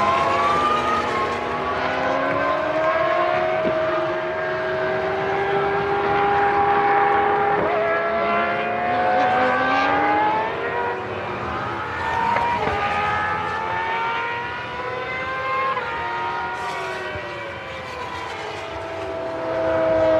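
Several 1998 Formula One cars' V10 engines screaming at high revs at once. Their overlapping pitches rise through the gears and fall away as the cars pass.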